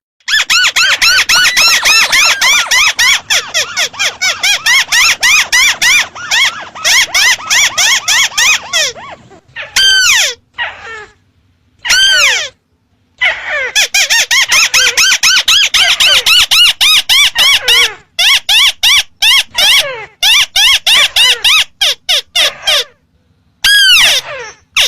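Recorded lure call of a ruddy-breasted crake: fast runs of short, arched, ringing notes, many a second, broken by brief gaps and by a few longer falling calls about ten, twelve and twenty-four seconds in.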